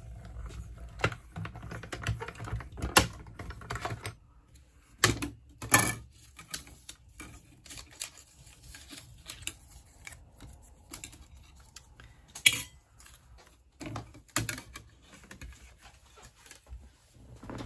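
Hand-cranked die-cutting machine running a die sandwich through its rollers, a low rumble with clicks, for about the first four seconds. After that come sharp, scattered clicks and clatter as the plates and metal die are taken apart and the cut cardstock is peeled free.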